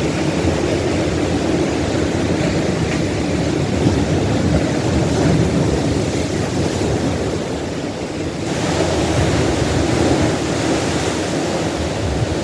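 Ocean surf breaking and washing up on a beach: a steady rushing that eases briefly about eight seconds in, then swells again.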